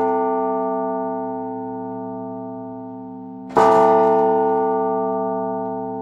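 Massive clock-tower bell tolling: a stroke that began just before is still ringing out at the start, and a second stroke lands about three and a half seconds in. Each stroke rings with a rich cluster of tones that fades slowly.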